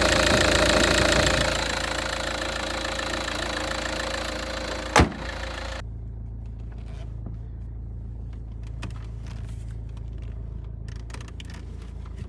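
Volkswagen Passat B5 with its engine running and a loud rough noise that comes with turning the steering wheel. The noise is loudest in the first second or two, has a sharp snap near five seconds, and cuts off suddenly before six seconds, leaving the engine idling with a steady low hum.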